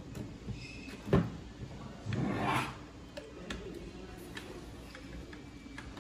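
Handling noise from a copier upper fusing belt assembly on a wooden worktable: a sharp knock about a second in, a half-second scraping rustle around two seconds in, then a few small clicks.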